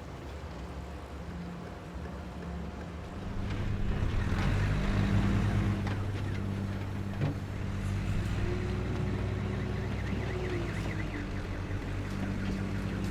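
Road traffic: motor vehicle engines running, growing louder about three and a half seconds in as a vehicle passes close by, then a steady low hum.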